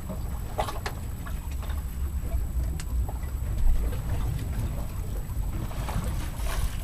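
Wind rumbling on the microphone with water lapping against a drifting boat, and a few light clicks and knocks. A single louder thump comes a little past halfway.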